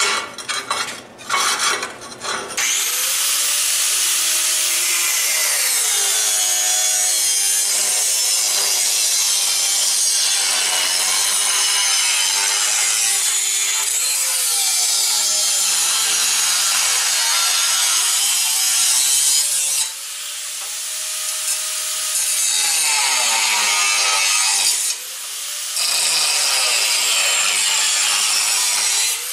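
Angle grinder cutting steel. After a few handling knocks, the grinder starts about two and a half seconds in and cuts continuously, its pitch sagging and recovering as it is pressed into the metal, and it eases off briefly twice near the end.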